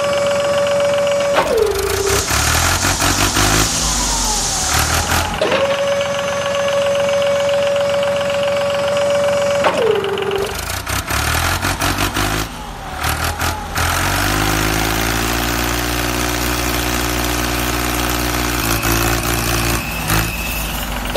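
Tractor engine sounds: a steady high whine that sags in pitch and stops twice, each time followed by a few seconds of the engine starting and revving, then a steady engine idle in the second half.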